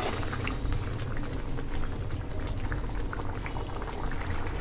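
Thick rajma (kidney bean) gravy boiling in a pan, bubbling steadily with many small irregular pops and plops as it cooks down and thickens.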